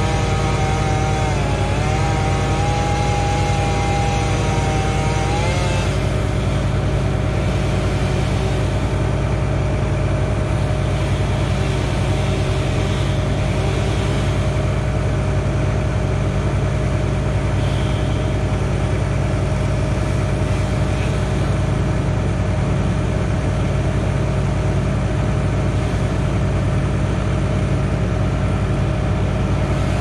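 Bucket truck's engine running steadily, with a wavering whine over it for the first six seconds or so that then stops.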